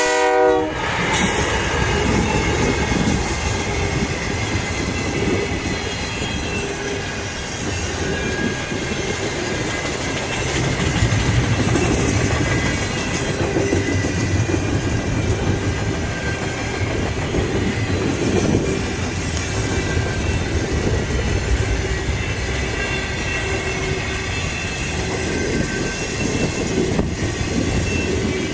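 A Canadian Pacific freight train's locomotive air horn cuts off about a second in, then the train rolls past with a steady rumble of wheels running over the rails.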